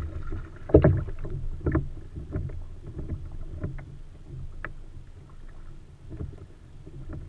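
Knocks and bumps on a plastic fishing kayak's hull as a landing net and gear are handled, with water lapping against the hull. The two loudest thuds come about a second in and just under two seconds in.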